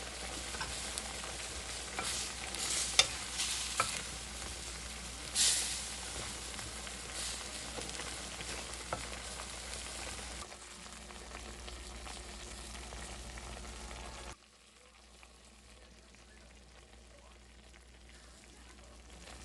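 Oyster pancakes sizzling in oil in a frying pan, a steady crackle with a few sharp clicks and spatters between about two and six seconds in. The sizzle turns much quieter about two-thirds of the way through.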